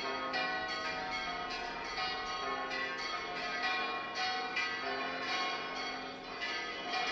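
Church bells ringing a peal, strokes coming about two a second with each tone ringing on into the next.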